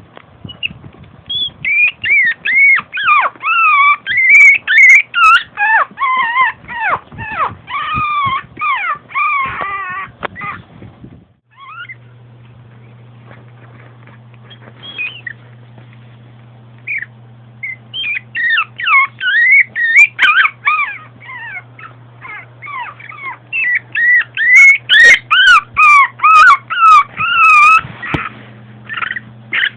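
Long-coat chihuahua whining: rapid runs of high-pitched, wavering whines, one to two a second, in two bouts with a quieter gap of a few seconds between them.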